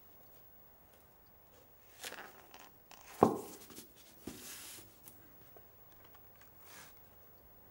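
Quiet handling of an old photo album: its stiff pages rustle as they are turned, with a single sharp knock about three seconds in and further rustles after it.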